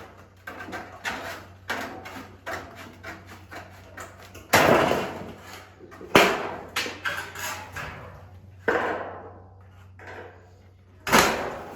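Roofing cutoffs being handled and worked: a run of clicks and knocks, with four louder bangs that each ring and die away over about a second.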